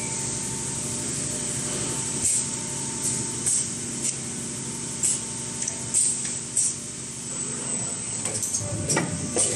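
Fully automatic PET bottle blow moulding machine running with a steady hum, broken by several short, sharp hisses of compressed air from its pneumatic system.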